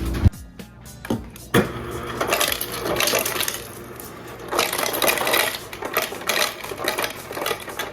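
Irregular clinking and clattering of small hard objects being handled, with a few sharp knocks.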